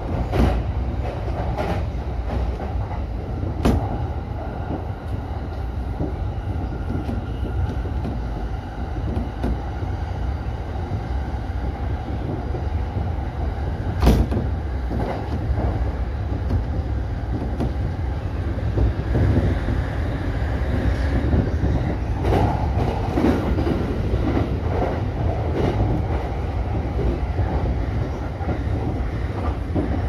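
JR East E233-series electric train running at speed, heard from the driver's cab: a steady rumble of wheels on rail, with a few sharp wheel clacks over the rails, the loudest about fourteen seconds in.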